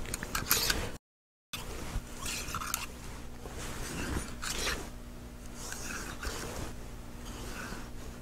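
Small brush scrubbing the steel frame and fixed barrel of a field-stripped Walther PP pistol, in short irregular strokes. The sound cuts out completely for about half a second, about a second in.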